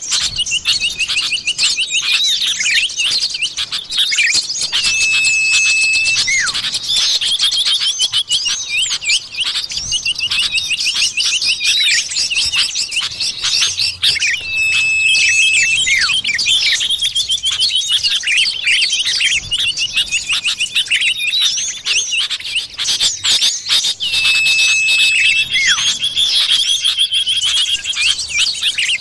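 Common iora (cipoh) lure recording: dense, rapid chattering chirps and trills, with a long steady whistle that comes back about every ten seconds as the track loops.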